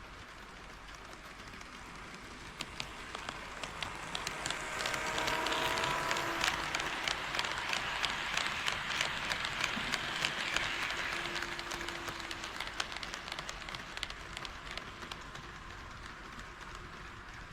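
HO-scale KATO D51 model steam locomotive and its train running past on KATO Unitrack, its wheels clicking rapidly over the rail joints. The sound swells as the train approaches, is loudest in the middle and fades away as it passes, with a faint whine on the approach.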